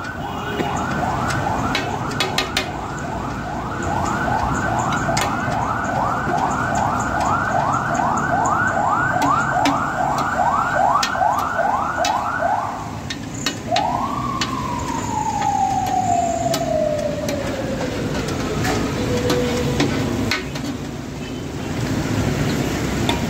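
Electronic siren yelping, its pitch sweeping up and down about twice a second for some twelve seconds, then giving one rise and a long, slow falling wail as it winds down. Scattered sharp clicks of a metal spatula on the iron griddle sound through steady background noise.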